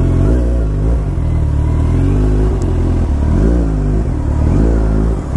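Kawasaki Ninja 1000SX's inline-four engine running under way, loud, its pitch rising and falling several times. There is a short dip near the end before it picks up again.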